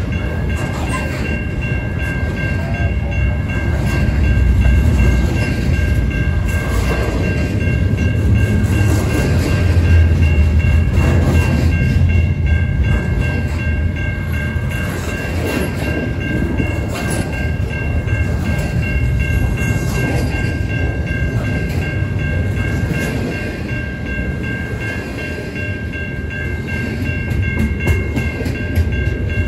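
Double-stack container well cars of a freight train rolling past close by. Their wheels rumble heavily on the rail, with clickety-clack knocks, and a faint steady high-pitched squeal runs under the noise. The rumble swells a few seconds in and again around ten seconds in.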